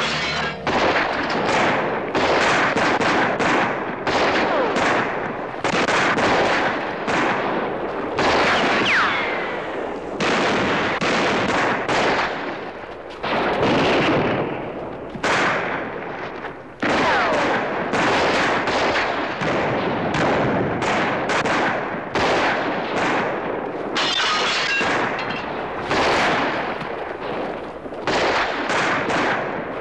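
Heavy gunfire: many rifles and pistols firing at once, shots overlapping almost without a break, with a couple of short lulls about halfway through and a few brief whines among the shots.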